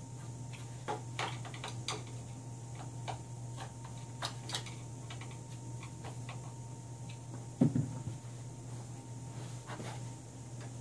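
Scattered light clicks and taps of small hand tools and screws as fasteners are tightened on plastic brackets mounted to a plywood board. About three quarters of the way through comes a single louder thump as the wooden board is handled. A steady low hum runs underneath.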